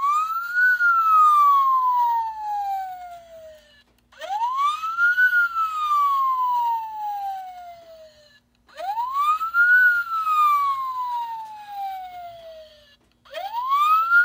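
Built-in police siren sound of a 1/18-scale Greenlight 2001 Ford Crown Victoria NYPD Interceptor diecast model, playing its single wail tone. The wail repeats four times, each cycle a quick rise in pitch and then a long slow fall, with a brief drop-out between cycles; the last one is cut off near the end.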